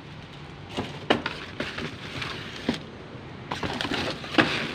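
Cardboard and paper rustling and crinkling as they are handled and shifted in a recycling bin, with irregular sharp crackles and knocks, the sharpest about a second in and near the end.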